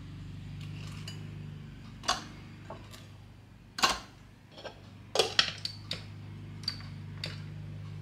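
A series of light, separate clicks and knocks as pieces of red onion are dropped into a food chopper's plastic bowl and the plastic lid is fitted on; the loudest come about four and five seconds in. The chopper's motor is not running.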